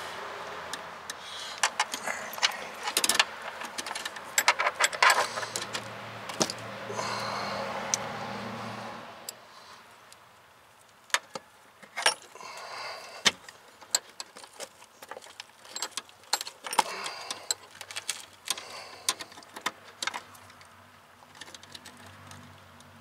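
Irregular metallic clinks and clicks of hand tools and a steel brake line being handled and fitted at a car's floor pan. A low hum runs for a few seconds near the middle.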